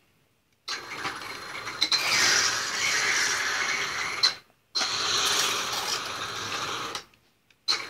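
3D-printed RC tank's electric motor and worm gear drive running the plastic track over its cut-down sprocket, a steady mechanical gear and track noise. It comes in two runs, about three and a half seconds and then about two seconds, with a brief stop between.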